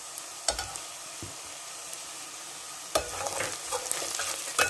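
Chopped onion, garlic and green chilli frying in oil in a metal pan, with a faint steady sizzle. A metal spatula knocks and scrapes against the pan: one knock about half a second in, then busier stirring from about three seconds in.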